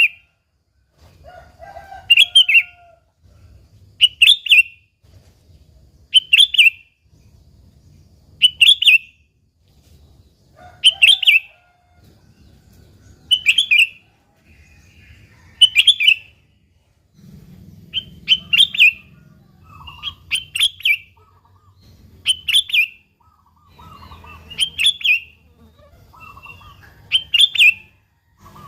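Sooty-headed bulbul (kutilang) calling: a loud, short, high call repeated about every two seconds, with fainter lower notes between the calls.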